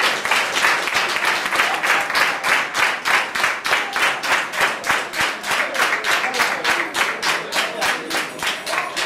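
A roomful of people clapping in unison, a steady rhythmic applause of about four to five claps a second, easing off a little near the end.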